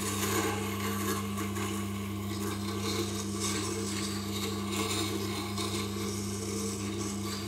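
A 3 mm thin parting tool's steel bevel being ground on a Tormek wet grinding stone: a steady scraping rasp over the machine's constant motor hum.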